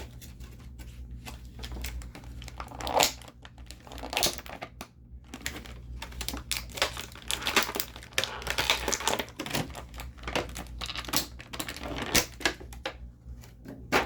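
Plastic toy packaging being handled: irregular crinkling and sharp clicks and snaps as an action figure is worked out of its plastic tray.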